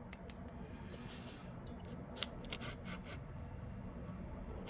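Light, scattered clicks and taps as a chainsaw piston is handled and lined up in its cylinder, over a faint low hum.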